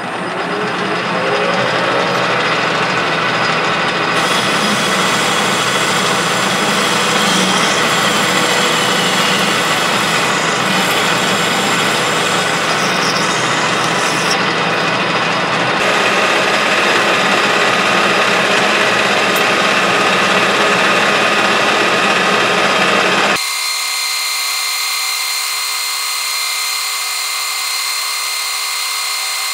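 Clausing metal lathe running under power while its turning tool cuts a steel part, a steady machine whir with cutting noise. About three-quarters through, the sound changes abruptly to a thinner, steadier hum with a faint high tone.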